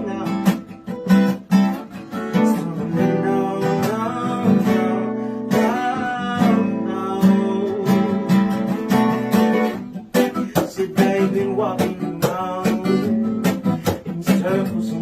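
Song music led by strummed acoustic guitar in a steady rhythm, with some singing.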